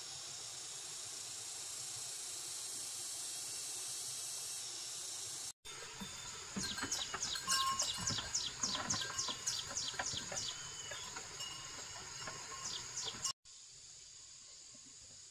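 Steady high buzzing of forest insects. In the middle stretch a louder, quick run of sharp taps comes in, about four a second, breaking off after a few seconds.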